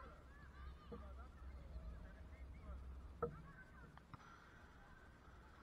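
Faint open-air ambience with short, distant calls that rise and fall, and one sharp knock a little after three seconds in.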